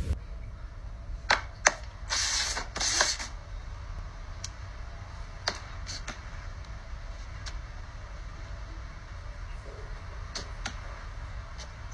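Scattered light clicks and taps, with two short scraping hisses about two seconds in: paper cups being set down, lifted and slid on a tabletop.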